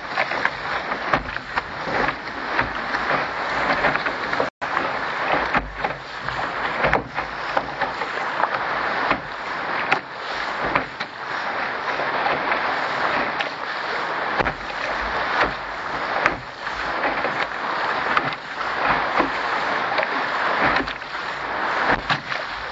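Water rushing and splashing along the hull of a Contender sailing dinghy under way through chop, with spray hitting close to the microphone: a dense rush broken by frequent splashes. The sound cuts out for an instant about four and a half seconds in.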